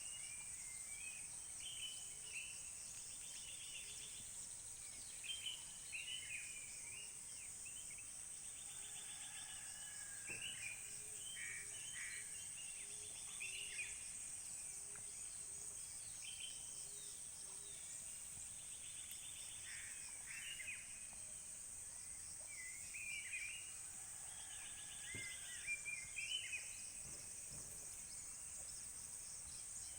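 Several birds chirping and calling on and off, with short trills and quick twittering phrases, over a steady high-pitched insect drone.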